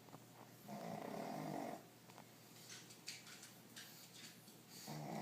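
A man snoring in his sleep: one loud snore about a second in that lasts about a second, then a quieter stretch, and the next snore starting near the end.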